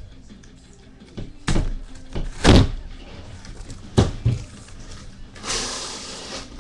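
Cardboard shipping case being handled and opened: three sharp thumps as the box is knocked and turned on the table, the second the loudest, then a longer scraping rustle of the cardboard flaps being pulled open near the end.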